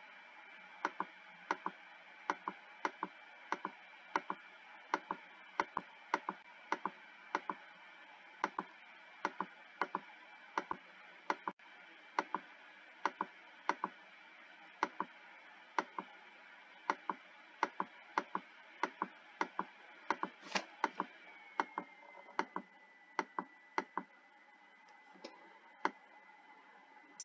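Computer mouse clicking over and over, about two clicks a second and often in quick pairs. A faint steady high whine runs underneath and drops slightly in pitch about two-thirds of the way through.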